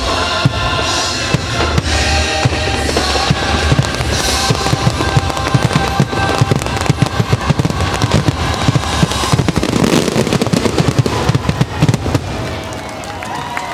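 A fireworks finale: a dense, rapid barrage of firework bangs over the show's music, building about two seconds in and thinning out near the end.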